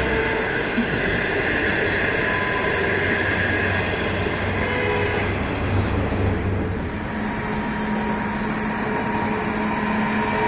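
Passenger coaches rolling past on the rails, a steady noise of wheels on track. As the last coach goes by, about two-thirds of the way through, the wheel noise eases and a steady low hum comes in as an HXD1D electric locomotive approaches.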